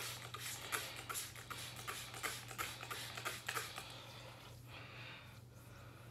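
Hand-held trigger spray bottle spritzing water onto hair, a quick run of short sharp sprays about three a second that thins out after about four seconds into softer, scattered hisses.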